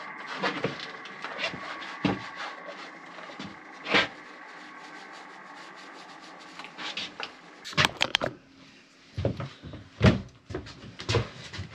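Scattered knocks and clunks of objects being handled, with a loud knock about four seconds in and a few sharp ones near the end. Faint background music fades out in the first few seconds.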